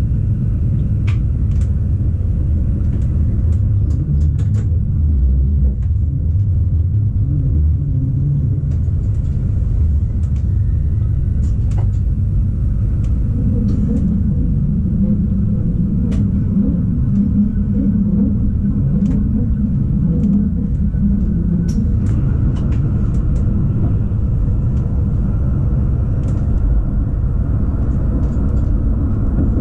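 Rhaetian Railway ABe 8/12 electric multiple unit running along the track: a steady low rumble of wheels on rail, with scattered light clicks.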